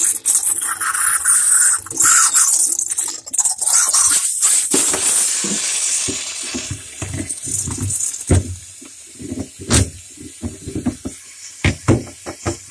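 A hissing spray of water for about the first six seconds, fading away, then scattered short knocks and clicks.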